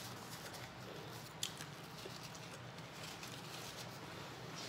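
Paper napkin rustling faintly as it is rubbed and crumpled between the hands, with one short sharp tick about a second and a half in.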